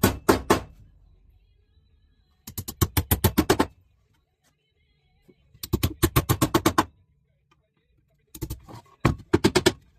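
Hammer driving 2-inch nails into the wooden locking bar of a beehive super box: quick runs of sharp taps, about eight a second, in three bursts of a second or so with short pauses between.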